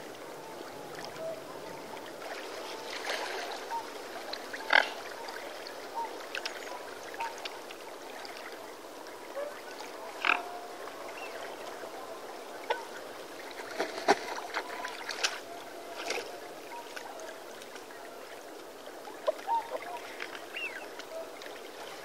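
Mute swan giving scattered short calls, with a few sharper, louder sounds standing out, over a steady background hiss.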